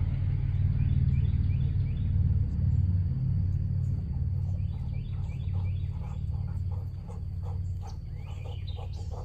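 Outdoor ambience dominated by a steady low wind rumble on the microphone, with a bird chirping repeatedly in short descending notes.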